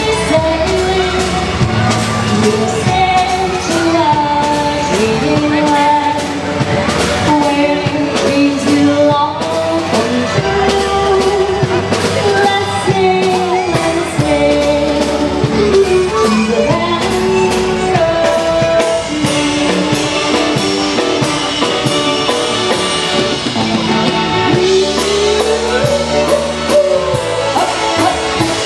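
Live polka band with brass playing a waltz, melody over a steady bass line.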